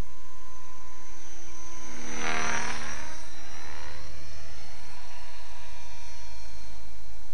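A buzzing, motor-like hum passes close by about two seconds in. It swells to a peak and drops in pitch as it goes away, over a steady low rumble.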